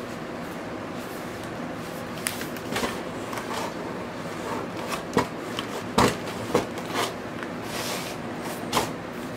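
A cardboard LP record jacket and its paper inner sleeve being handled over a cardboard box: rustling, with a few sharp taps and knocks, the loudest about six seconds in.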